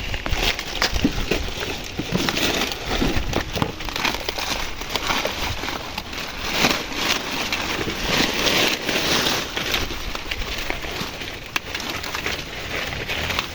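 Dry maize leaves, husks and stalks rustling and crackling as maize is harvested by hand, with a steady run of small snaps and crunches.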